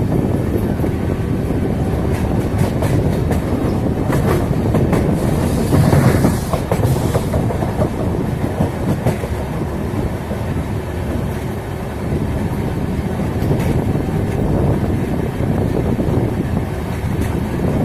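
Indian Railways train running along the track: a steady rumble of the wheels with clickety-clack over the rail joints. It swells briefly louder and brighter about six seconds in.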